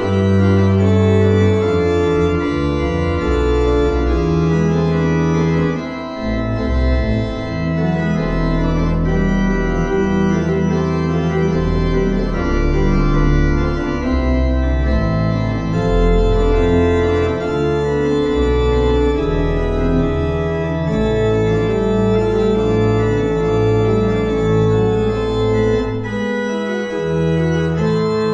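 Church organ playing the closing voluntary: full, sustained chords over deep held bass notes.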